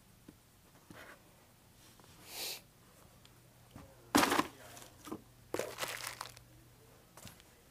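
Packaging rustling and crinkling as items are handled in an open cardboard box, in a few bursts, the loudest about four seconds in. A low steady hum lies underneath.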